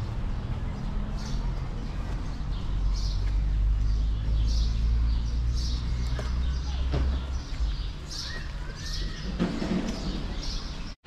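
Short, high bird chirps repeated about once a second over a steady low rumble. The sound cuts out abruptly just before the end.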